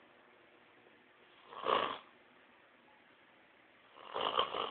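Two snores from a person or animal sleeping, one about a second and a half in and another starting near the end, with near silence between them.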